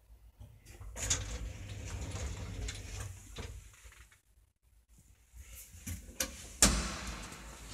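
Elevator car doors sliding open with a rattling run of noise lasting a few seconds. Near the end a hand pushes open the manual landing door, with a sharp latch click and then a louder knock.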